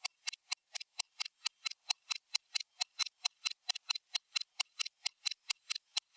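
Stopwatch ticking sound effect: rapid, evenly spaced sharp clicks, about four to five a second.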